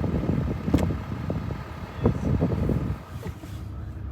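A truck's engine running, heard from inside the cab as a low rumble with a few sharp knocks; it drops in level about three seconds in.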